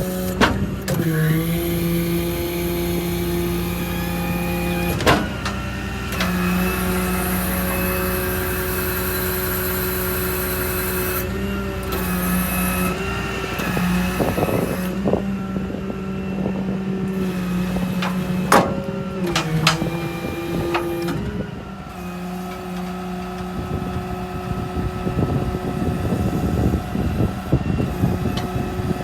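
A work truck's hydraulic crane system running off the 6.7 Cummins diesel: a steady mechanical whine and drone that sags briefly in pitch as a crane function takes load. A few sharp clunks come from the crane and outriggers.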